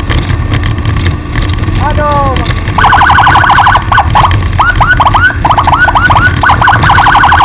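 Vehicle-mounted electronic siren sounding in short bursts: a very fast warble broken by groups of quick rising whoops, over steady road and engine noise.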